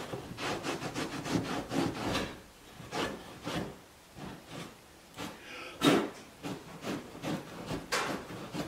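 A cloth towel rubbing and wiping around the wheel well of a car in irregular scrubbing strokes. A couple of louder knocks come about six and eight seconds in.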